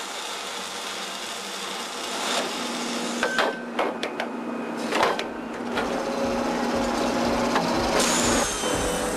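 Forestry harvester working a Lako harvesting head: a steady machine hum, with several sharp clanks and clicks about halfway through and a deeper rumble coming in near the end.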